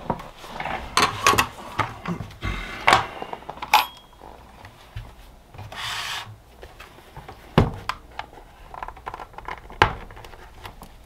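Plastic lid of a lithium iron phosphate battery case being pried open with a small hand tool: scraping and rubbing, with a few sharp clicks as the silicone-sealed lid gives. The two loudest clicks come in the second half.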